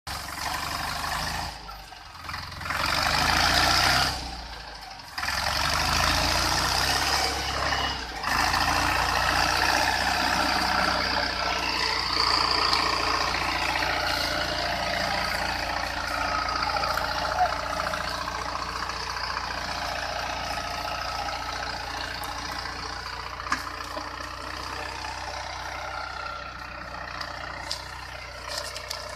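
Captain 28 HP compact tractor's diesel engine working under load as it hauls a heavily loaded sugarcane trolley, with a few brief dips in the first eight seconds before it settles into a steady run that fades slightly as it moves away.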